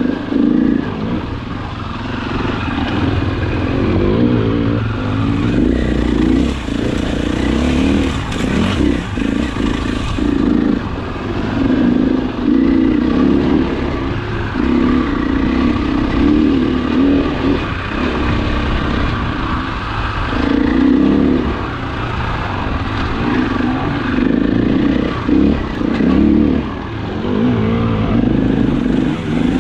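Off-road dirt bike engine revving up and down as the throttle is opened and closed on a rocky climb, loud and close to the microphone.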